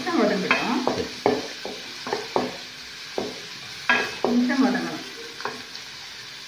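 Chopped onion sizzling as it fries in oil in an aluminium pan, while a flat spatula stirs it and scrapes across the pan bottom in quick, irregular strokes, with busier stirring near the start and again about four seconds in. The onion is being sautéed until soft.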